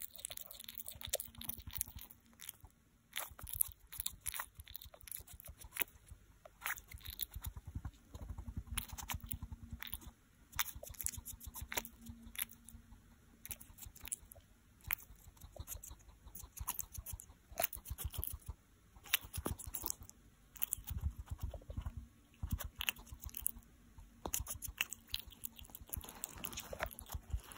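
Hedgehog chewing a quail egg: rapid, irregular crunchy clicks of its jaws, in runs broken by short pauses.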